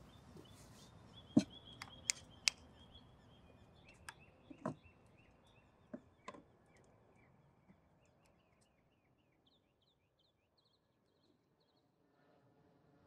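Birds chirping in short repeated notes, with a few sharp clinks and taps of glass and cutlery on a table in the first six seconds or so.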